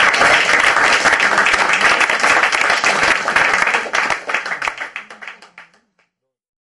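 Audience applauding, the clapping thinning out and dying away about five seconds in.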